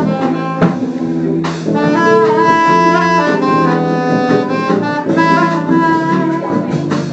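Saxophone playing a slow jazz melody in phrases over a sustained low accompaniment.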